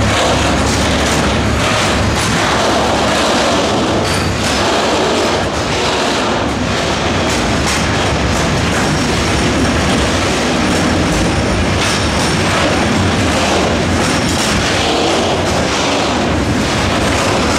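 Covered hopper wagons of a freight train rolling past close by: a steady loud rumble of wheels on rails, with a run of short clacks as the wheels cross the rail joints.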